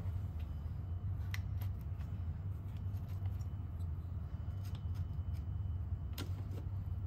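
Scattered small metallic clicks and taps as diesel fuel injectors and their hold-down clamp are worked into place on a VW 1.6 TDI engine, over a steady low hum. The sharpest click comes about six seconds in.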